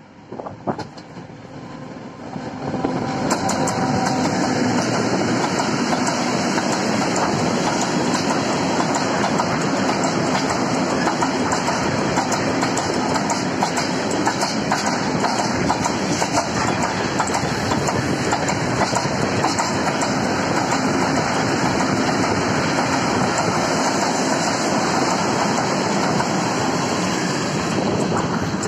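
Freight train of coal-loaded hopper wagons passing close by, with a steady heavy rumble and rapid clicking of wheels over the rail joints. It builds up over the first few seconds as the locomotive and the first wagons draw level, then holds steady.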